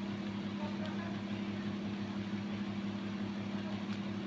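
A steady low mechanical hum that does not change, with a faint even pulsing underneath.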